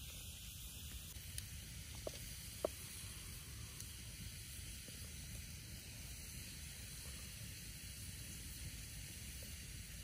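Steady hiss of food cooking, with two light clicks between two and three seconds in.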